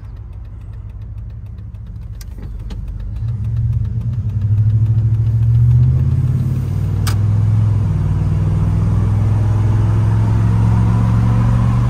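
Dodge Ram's 5.9-litre gas V8 heard from inside the cab, pulling under acceleration on fresh spark plugs and plug wires. The engine note builds and rises in pitch over the first five or six seconds, eases slightly, then holds steady and loud.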